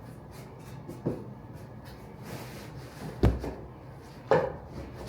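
Three knocks: a light one about a second in, then two heavier thuds a little after three and four seconds in.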